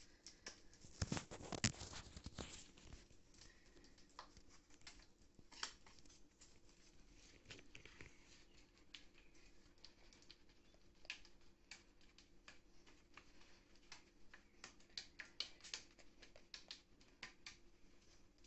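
Faint scrubbing of a sponge working ketchup over a rusty metal chair base: irregular scratches and rustles, busiest and loudest about a second or two in.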